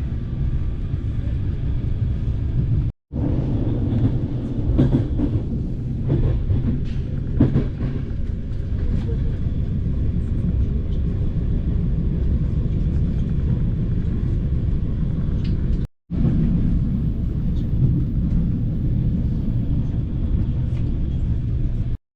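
Passenger train in motion on BDZ classic carriages, a steady low rumble of wheels on track with scattered clicks and knocks from about four to eight seconds in. The sound cuts out for an instant three times: about three seconds in, about sixteen seconds in and near the end.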